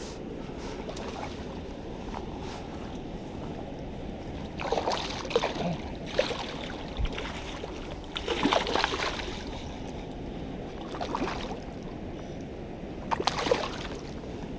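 Water splashing in five or six short bursts over a steady low rush, as a hooked smallmouth bass thrashes at the surface during the fight.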